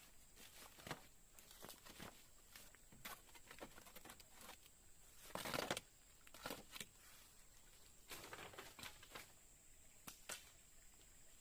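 Faint scattered rustling and crackling, with a longer, louder rustle about five and a half seconds in, over a thin steady high-pitched tone.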